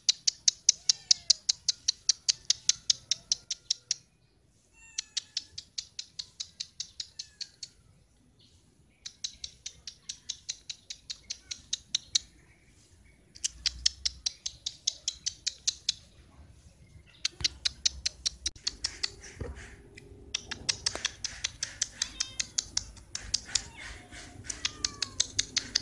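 Rapid trains of sharp, high clicking calls from an animal, about five a second, in runs of three to four seconds with short pauses between.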